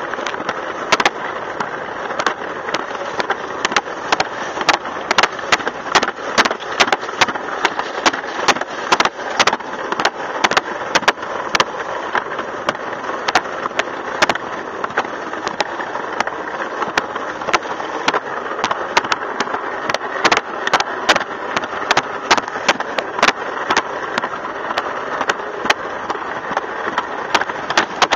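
Alpine slide sled running down a concrete track: a steady scraping rumble from the sled on the trough, broken by frequent sharp clicks and knocks.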